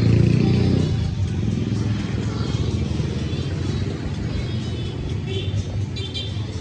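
Background music over a steady low vehicle rumble, loudest in the first second.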